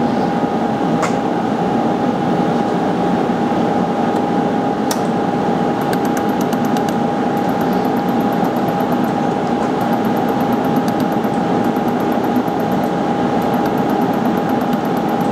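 Orion LZR 100 benchtop laser welder firing on a white gold ring: a couple of single pulses, then from about six seconds in, runs of rapid faint ticks at about nine a second with short breaks between them, over a steady fan hum with a constant tone.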